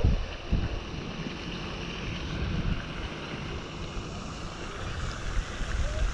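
Wind buffeting the microphone: a steady low rumble that swells and eases unevenly.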